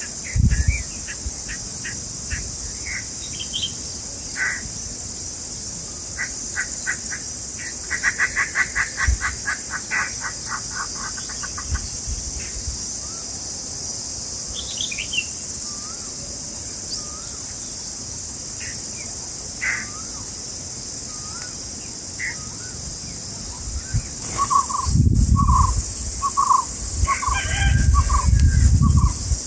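Small birds chirping at a nest: scattered short chirps, a quick run of rapid chirps about a third of the way in, and a series of short repeated calls near the end, over a steady high insect drone. Low thumps come with the calls near the end.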